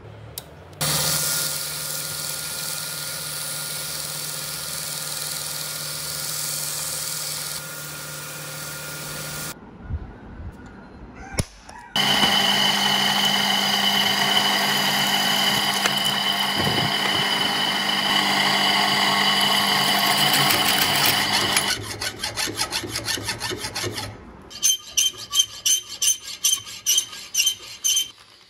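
A belt sander grinding the flat of a steel shuriken for about nine seconds. After a short pause, a drill boring a hole through the steel with a twist bit, running steadily for about ten seconds. Near the end, a hand file rasping across a blade edge in strokes about two a second.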